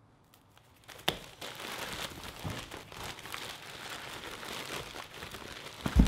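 Glossy plastic mailer pouch crinkling as it is shaken and a pile of round printed stickers spills out onto a table. There is a sharp click about a second in and a louder thump near the end.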